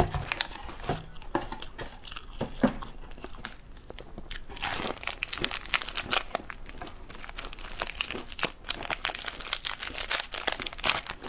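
A few crisp crunches of a wafer being bitten in the first seconds, then a foil snack wrapper being torn open and crinkled, a dense crackling that runs from about four seconds in to the end.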